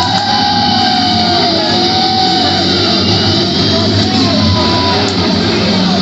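Loud metal music with electric guitar, played over a concert hall's PA and picked up from within the crowd, with some shouting.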